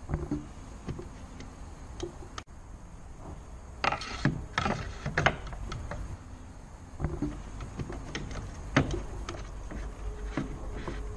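Scattered plastic clicks, taps and knocks from hands working on an Opel Meriva B door mirror housing as its Torx screw is taken out, busiest about four to five seconds in and with a sharp knock near nine seconds. A steady low hum runs underneath.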